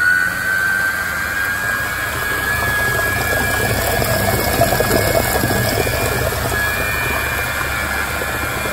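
A Silvercrest Monsieur Cuisine Edition Plus food processor's motor runs at speed 5, beating cake batter in its steel bowl. It makes a steady high whine over the churning of the mix.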